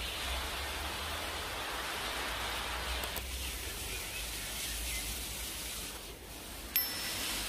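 Wind blowing across an outdoor microphone: a steady hiss with an uneven low rumble of buffeting. A single sharp click sounds near the end.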